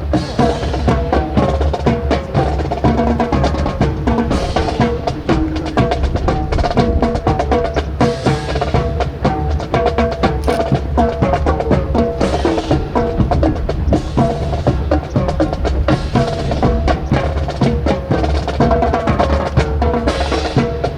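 Drum-led marching music for a rifle drill, with a constant stream of sharp, wood-like clacks and drum strikes over steady pitched notes.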